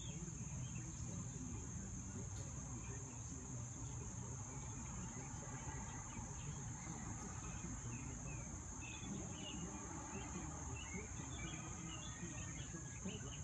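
Steady high-pitched chorus of crickets, unbroken throughout, with scattered short chirps in the second half.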